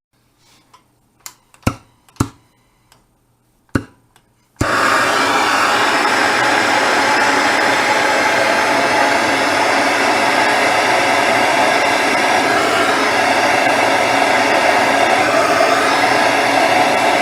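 Heat gun switched on about four and a half seconds in and blowing steadily, heating a rust-seized screw to break it loose. A few sharp clicks of tool handling come before it.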